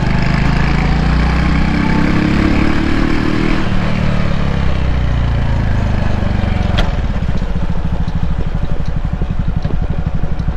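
Honda Cross Cub's single-cylinder four-stroke engine on the move: its pitch rises briefly, then falls away as the bike slows, and after a sharp click about seven seconds in it settles into a slow, even putter at low revs.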